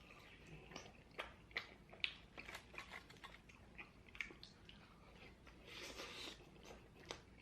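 Faint chewing and biting: soft, irregular mouth clicks and smacks of someone eating.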